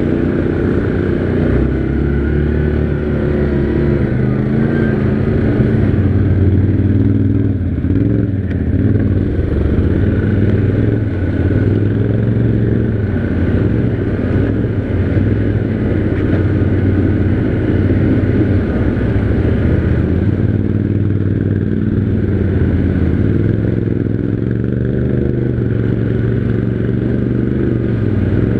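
Yamaha Grizzly 700 ATV's single-cylinder four-stroke engine running while riding, its note wavering up and down a little with the throttle.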